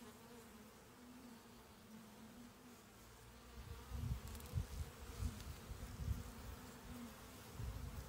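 Honeybee colony humming steadily, the faint drone of many bees over an open hive. From about halfway, irregular low rumbles come and go.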